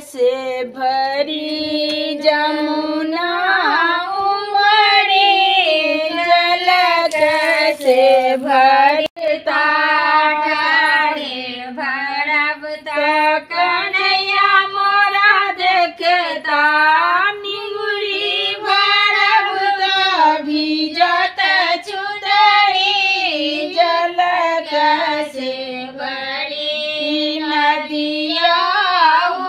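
Women singing a Maithili wedding folk song with no instruments: one continuous melody of long, gliding notes.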